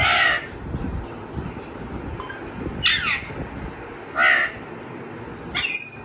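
Pet parrot giving four short, loud, harsh calls spaced irregularly, each with a rich stack of overtones.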